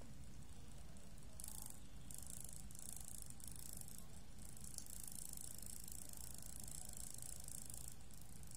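Small 12 V DC motor spinning its propeller at low speed, around 800 RPM, with a steady faint whir. A high rattling hiss comes in about a second and a half in and keeps coming and going.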